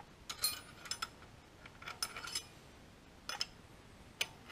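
A steel wrench clinking against metal as it is picked up from among tools and fitted onto the pilot bearing puller's bolt: a handful of sharp metallic clinks and rattles, the last near the end.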